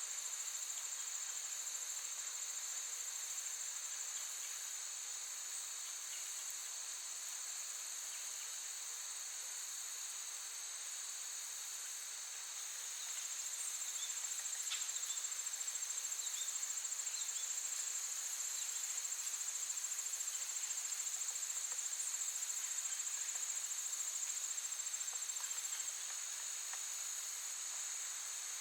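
Chorus of crickets trilling steadily and high-pitched, getting louder a little under halfway through and easing back near the end. A few faint short chirps come through about halfway.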